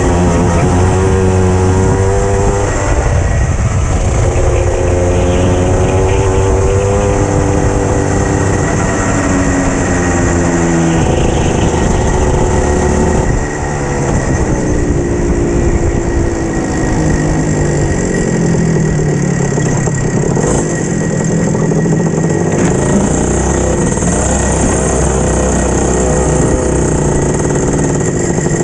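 Racing kart engine heard onboard, its pitch rising and falling as the kart accelerates and slows through corners. About halfway through the pitch drops and settles lower and steadier as the kart slows toward the pit area.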